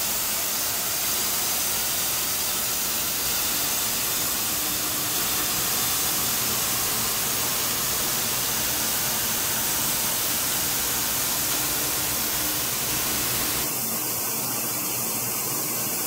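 Steady loud hiss of running yarn-production machinery in a BCF carpet-yarn plant, with a faint steady hum under it. The low rumble drops away near the end.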